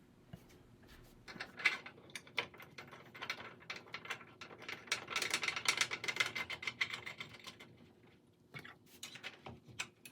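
Loom parts being handled and fitted: a run of irregular clicks and light knocks of wood and metal as the cloth beam with its gear is set back into its supports.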